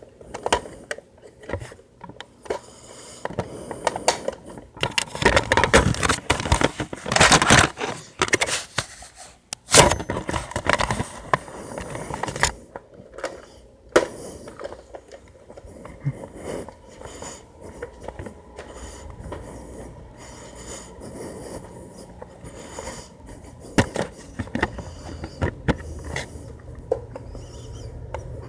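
Scraping and rustling handling noise, densest in the first third, with a few sharp clicks scattered through it.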